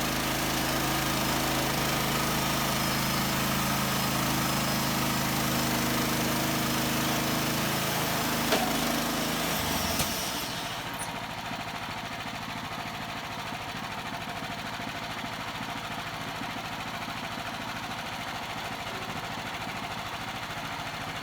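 Bandsaw mill's small engine running steadily. About halfway through it drops abruptly to a quieter, lower steady running.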